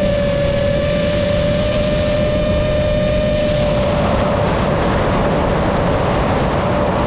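Aircraft in flight heard from on board: a steady engine whine held at one pitch over a constant rush of wind and engine noise, with fainter higher tones fading out about halfway through.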